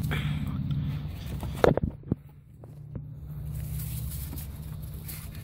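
A few sharp knocks and clicks of hands working a part loose, the loudest about a second and a half in, over a steady low hum.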